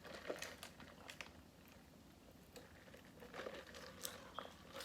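Faint mouth sounds of a person chewing food, with scattered small crunches and clicks.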